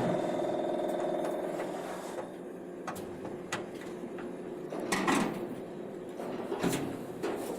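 CNC lathe running with a steady motor hum that dies away about two seconds in, followed by scattered clunks and knocks.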